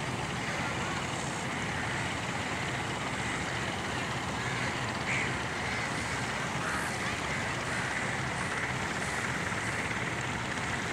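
Steady outdoor background noise: an even low rumble under a hiss, with a few faint short high sounds in the middle.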